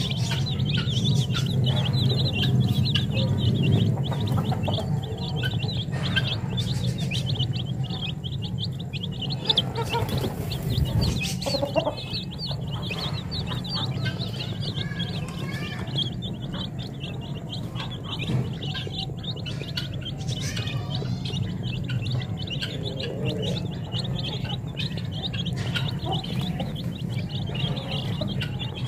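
A flock of baby chicks peeping nonstop, many high-pitched cheeps overlapping, over a steady low hum.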